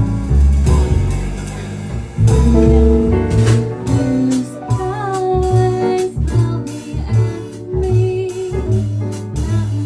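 Live jazz combo playing: a woman singing over grand piano, electric guitar, a walking double bass and a drum kit with cymbals. The voice comes in about four seconds in.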